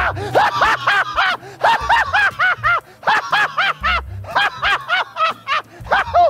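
People laughing hard in a quick run of short 'ha' bursts, several a second, with brief breaks for breath.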